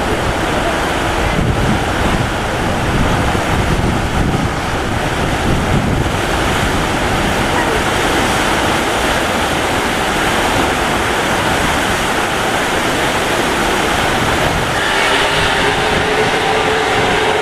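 Loud, steady rush of water churning in the slip under the SS Badger's stern. About fifteen seconds in, a steady hum joins it.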